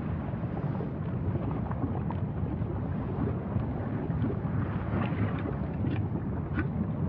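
Low, steady rumble of wind buffeting the microphone, with a few faint crackles about five to six and a half seconds in.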